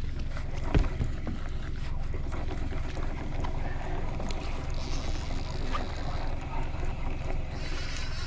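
Boat's outboard motor running steadily at low revs, with a sharp knock about a second in and bursts of hiss around the middle and near the end.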